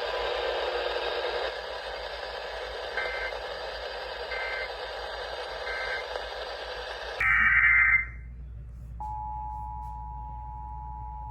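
Emergency Alert System broadcast over a hissing radio signal: three short two-pitch data-tone bursts of the alert header about a second and a half apart, then a louder burst of the same tones. About two seconds later the steady two-tone EAS attention signal starts.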